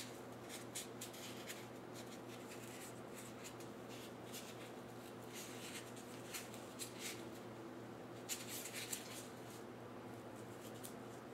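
Faint, scattered rustling and scratching of yarn being handled and wound around a small foam block by hand, over a steady low hum.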